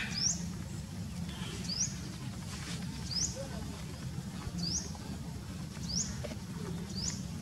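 A bird repeating a short, high chirp that sweeps upward, six times at about a second and a half apart, over a steady low hum.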